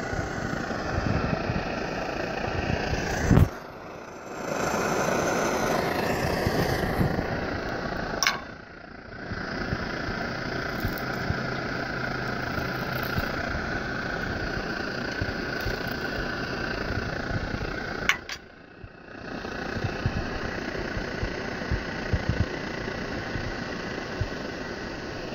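Svea 123 brass white-gas stove burning steadily at a pretty high setting, its burner giving a continuous engine-like rush. Three times the sound dips for about a second, each dip starting with a click.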